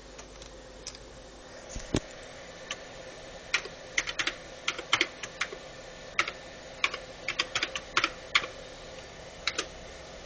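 Irregular clicks of keys being pressed, as in typing, sparse at first and coming in quick runs through the middle, over a steady low electrical hum.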